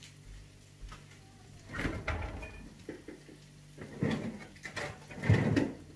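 Someone handling a kitchen refrigerator: footsteps and the fridge door being opened, with three short bouts of soft knocks and rustling as things are moved, over a faint steady low hum.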